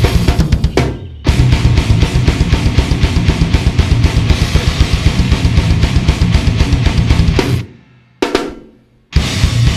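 Raw, live-tracked deathcore recording played back, the drum kit loudest, with rapid kick-drum strokes and snare under a dense wall of sound. It breaks off briefly about a second in, and again near the end, where a single hit rings out before the band comes back in.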